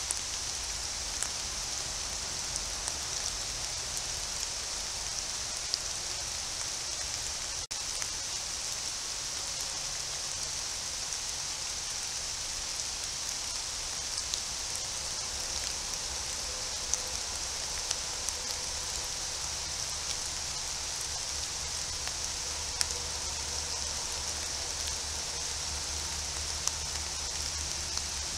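Steady rain falling on forest foliage, a continuous hiss with scattered faint drop ticks. There is a split-second gap about eight seconds in.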